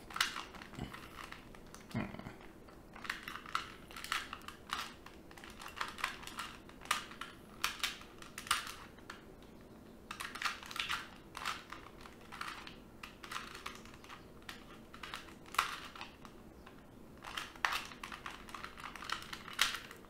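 2x2 Rubik's Cube being turned by hand through a sticker-swap algorithm: irregular runs of quick plastic clicks and clacks as the layers turn, with short pauses between runs.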